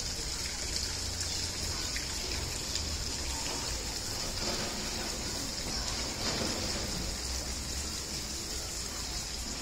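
Steady rushing noise of running water, with a low hum underneath.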